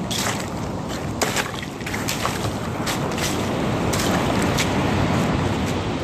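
Waves washing on the shore and wind on the microphone, a steady rush that swells a little in the second half, with scattered sharp clicks and crackles from plastic beach litter being disturbed.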